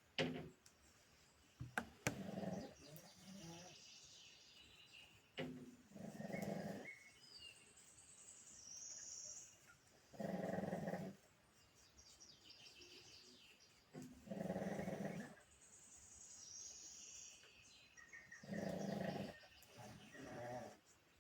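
Pug snoring in its sleep: five low snores, each about a second long, coming about every four seconds, with a faint high wheeze between them. A few sharp clicks in the first two seconds are the loudest moments.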